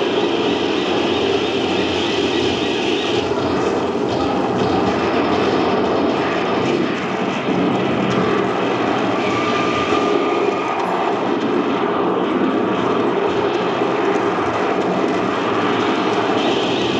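Battle sound-effects track of a diorama show: a loud, steady drone of aircraft engines, played over the hall's loudspeakers.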